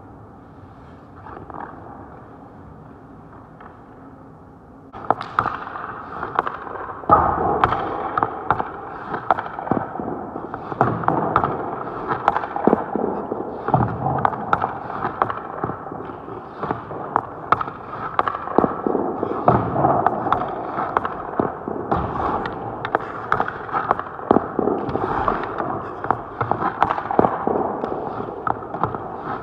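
Hockey stick blade and puck knocking and scraping on the ice close by, a dense run of sharp clacks and scrapes that starts about five seconds in, after a quieter stretch.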